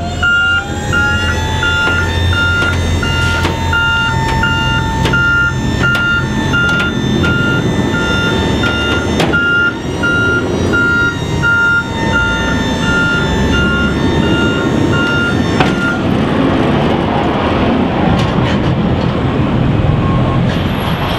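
Scorpion TL-3 truck-mounted crash attenuator unfolding from the back of a flatbed truck: its hydraulic pump gives a steady whine, broken once about nine seconds in, while a warning beeper sounds about twice a second and the frame clunks now and then. The whine and beeping stop about sixteen seconds in, leaving the truck's diesel engine idling.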